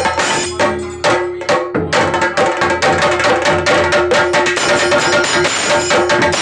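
Rope-laced barrel drums beaten fast with a stick and a curved cane, a dense ensemble rhythm that thins briefly about a second in and then runs on at full pace, with a steady held tone beneath it.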